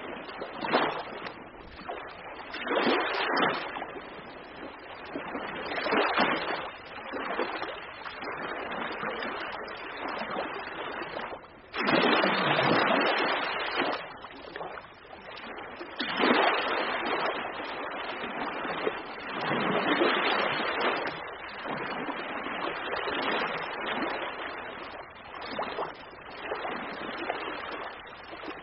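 Ocean waves washing in and breaking, the rush of water swelling and falling every few seconds, with bigger surges about 12 and 16 seconds in.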